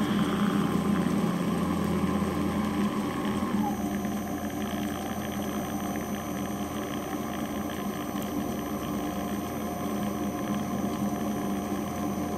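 RHINO nut grinder's electric motor running steadily under load as it grinds peanuts and dispenses peanut butter. Its pitch dips slightly about three and a half seconds in.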